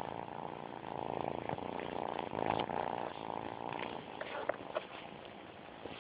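Calico kitten purring right against the phone's microphone, a steady fine pulsing rumble that is strongest in the first few seconds and eases off after about four seconds. A few light clicks come near the end.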